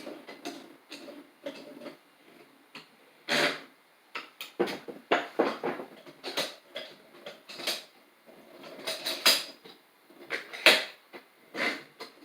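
Bench vise being handled and worked by hand: an irregular run of metal clanks, knocks and scraping as its parts are moved, with two louder clanks about three and a half and ten and a half seconds in.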